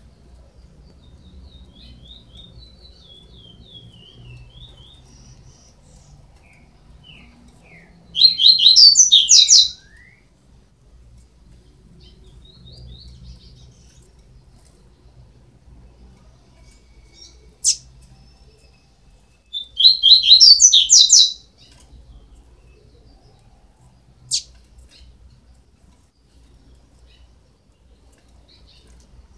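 Young double-collared seedeater (coleiro) chicks, about 12 days old, chirping. There are two loud bursts of rapid high chirps, one about 8 seconds in and one about 20 seconds in. Soft twittering comes at the start and a couple of single sharp chirps fall in between.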